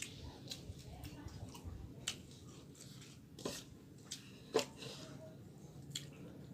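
A person eating: scattered wet mouth clicks and smacks of chewing, about half a dozen sharper clicks spread unevenly, the loudest about four and a half seconds in.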